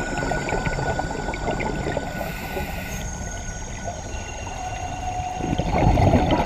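Underwater sound of scuba diving: a steady hiss and crackle with faint held tones over it, and a louder gush of a diver's exhaled regulator bubbles about six seconds in.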